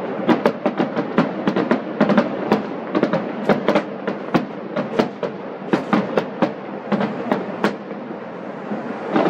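Aerial fireworks shells bursting: a rapid, irregular run of sharp bangs and crackles, several a second, over a steady background noise. The bangs thin out near the end.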